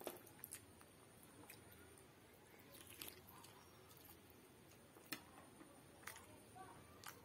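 Faint hand-eating sounds: fingers squishing khichdi and chicken curry on a steel plate, then chewing a mouthful of curried chicken and khichdi, with a few sharp clicks scattered through.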